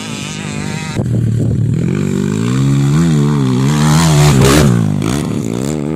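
Dirt bike engines on a motocross track: a more distant bike, then, after an abrupt change about a second in, a second dirt bike revving up and down as it rides through a corner. It is loudest as it passes close at about four seconds, then eases off.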